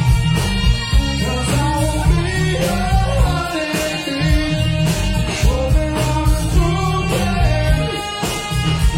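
A rock song playing: a lead singer's voice over electric guitar, bass and a steady drum beat.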